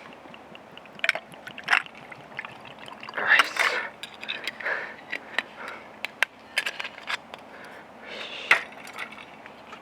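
A drink being poured into a glass, with a hissing pour a little over three seconds in and many sharp clinks and knocks of the glass and containers being handled.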